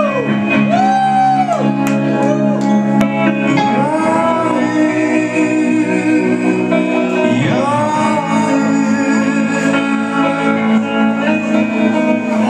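Live guitar band playing: electric guitars holding loud sustained chords while a man sings, his notes sliding up and down.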